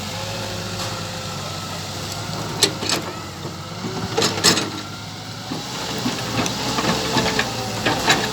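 Radio-controlled model excavator running, its motors giving a steady hum with a whine that rises and falls in pitch. Several sharp clacks come about two and a half, three, four, four and a half and eight seconds in.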